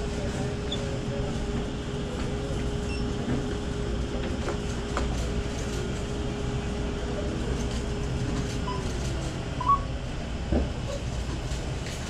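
Store background noise: a steady low rumble with a faint steady hum that slides down in pitch about two-thirds of the way through, and two short knocks near the end.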